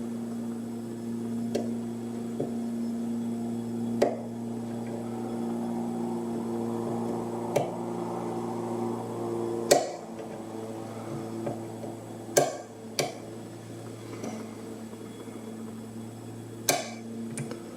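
Single-pin picking of a rim cylinder lock with a hook pick and bottom-of-keyway tension wrench: a handful of sharp metallic clicks and taps from the pick and lock, the strongest about ten seconds in, over a steady low hum.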